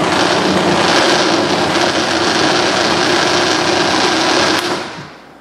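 Countertop blender motor running steadily as it purees roasted pumpkin and chicken stock into a smooth soup. It is switched off about four and a half seconds in and winds down.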